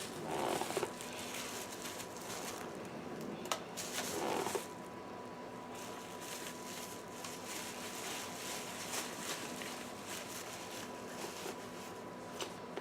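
Faint rustling and handling of unboxed items, with two short rustles and a few light clicks over a faint steady high tone.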